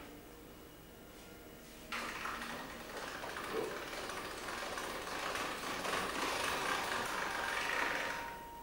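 Hand-cranked pasta roller machine rolling out a sheet of pasta dough: a steady mechanical running sound that starts about two seconds in and lasts about six seconds.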